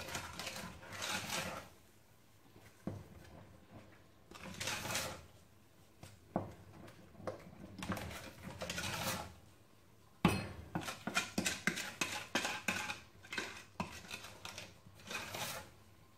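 Wooden spoon stirring and scraping a thick sugar-and-starch paste in a stainless steel pot: three slow swishes, then, about ten seconds in, quicker strokes with the spoon knocking against the pot.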